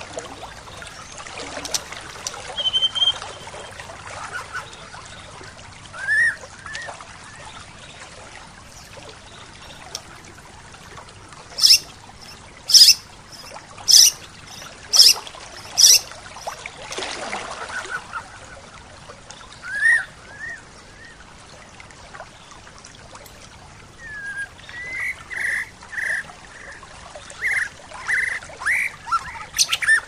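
Stream flowing steadily, with birds calling over it: occasional rising chirps, five loud sharp calls about a second apart midway, and a quick run of short calls near the end.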